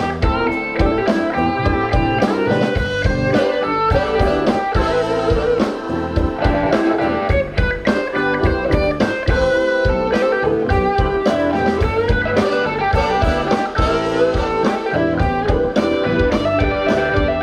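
Live blues-rock band playing an instrumental passage, electric guitar to the fore over a drum kit.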